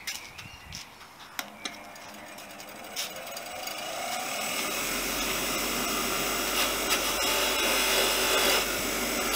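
Bench grinder with a wire brush wheel spinning up with a rising whine, then running steadily. In the last few seconds a rusty steel centre-stand part is pressed against the spinning wire wheel, a harsh scraping as the rust is brushed off.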